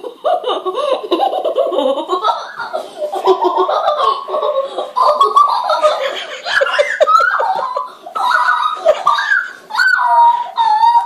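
A young girl laughing hard in long giggling fits that break into shorter bursts near the end.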